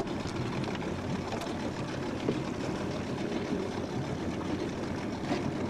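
A small fishing boat's motor running steadily at trolling speed, under a constant wash of wind and water noise.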